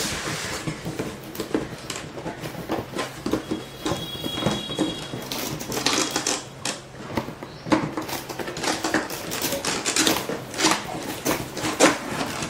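A cardboard box being opened and its packaging handled: irregular rustles, scrapes and small knocks.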